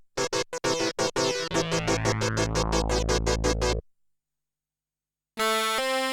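Kurzweil K2000 synthesizer factory patches played dry. Short staccato chords repeat rapidly, then quicker repeated notes play over a held low bass note and cut off suddenly about two-thirds of the way through. After a second and a half of silence, a different sustained patch begins, playing a line of held notes.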